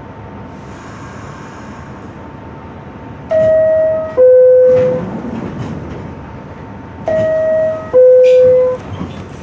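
R62A subway car's door-closing chime: a two-note descending ding-dong, sounded twice about four seconds apart, over the steady hum of the car.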